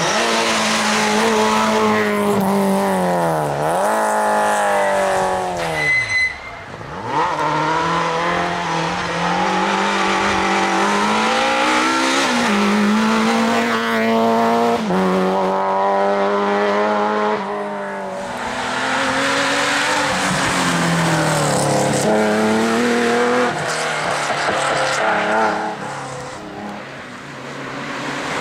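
Citroën C2 rally car driven hard. The engine revs climb, drop sharply at each gear change, and fall away as the driver lifts off for bends, several times over. Near the end a second rally car, a Peugeot 207, is heard coming up.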